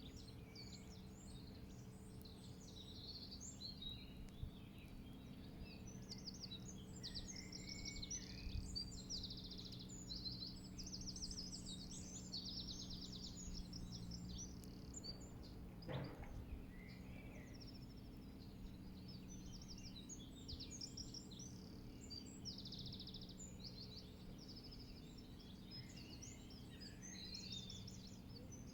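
Several small songbirds chirping and trilling over a steady low background rumble, with one sharp click about halfway through.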